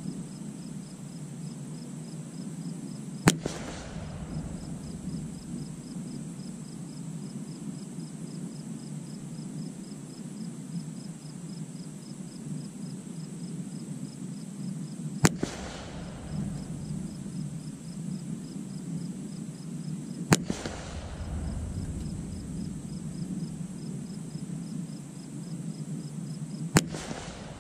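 .22 LR rifle fired four separate times at widely spaced intervals, each shot a sharp crack followed by a short echo. Insects chirp steadily in the background.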